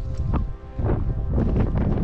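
Wind buffeting the microphone in a low rumble, under background music with held notes. The wind drops off briefly about half a second in.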